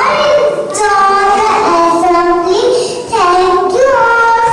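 Young children singing a song, with long held notes stepping up and down in pitch and short breaks between phrases.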